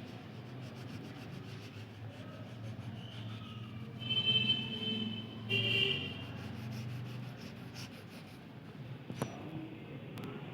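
Colour being rubbed back and forth on drawing-book paper while filling in a picture, over a steady low hum. Two short high-pitched sounds come in the middle, and a sharp click comes near the end.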